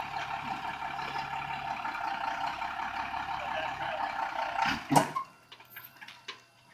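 Vehicle winch hauling in its line, with a truck engine running steadily. Near five seconds in, a loud clunk, and the running sound stops, leaving only a few faint clicks.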